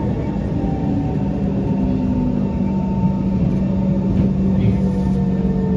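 SMRT C151 metro train running, heard from inside the carriage by the doors: a steady rumble and hum, with thin motor whines that glide down in pitch as the train slows.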